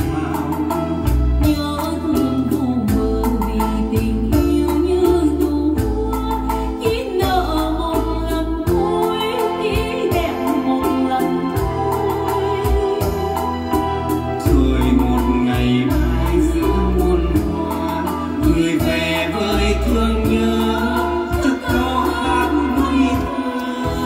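A song sung in Vietnamese by a singer over instrumental backing with a steady bass line.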